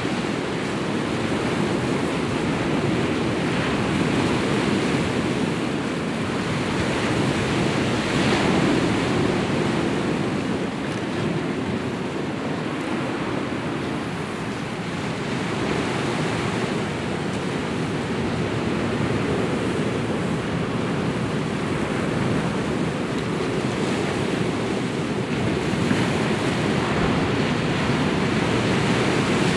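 Sea waves breaking on a rocky shore: a steady wash of surf that swells and eases gently every few seconds.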